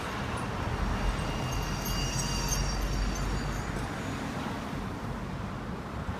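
City street traffic: a steady rumble and hiss of passing cars.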